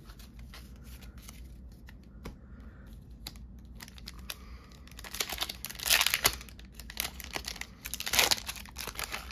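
Foil wrapper of a Pokémon TCG booster pack being torn open and crinkled, with small rustles and ticks of handling first and two loud rips in the second half.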